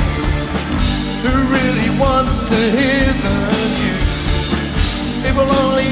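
Rock song with a sung vocal line over a full band: the voice holds and bends long notes with no clear words.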